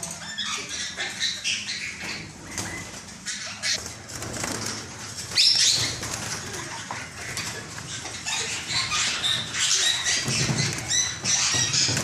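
A flock of caged parakeets flapping their wings as they fly about the aviary, with short high-pitched chirps and calls throughout. The flapping is loudest about five and a half seconds in.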